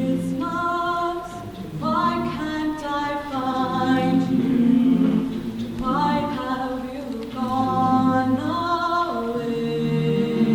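High school madrigal choir singing a cappella in held, sustained chords, with low and high voices together and a new chord every couple of seconds.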